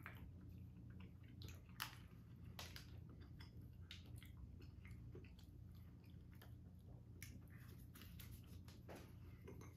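Faint chewing and mouth smacks of people eating squares of jam-filled dark chocolate, with scattered small clicks and one sharper click just under two seconds in.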